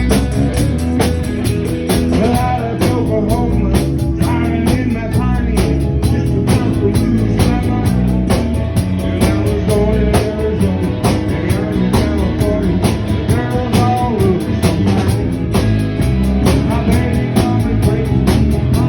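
A rock band playing a song: guitar over bass and drums, with a steady beat.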